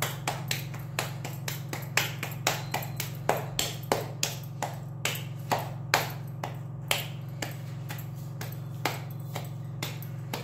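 Bare hands patting a ball of maize-flour dough flat between the palms to shape a makki ki roti: a run of soft slaps, about two to three a second, over a steady low hum.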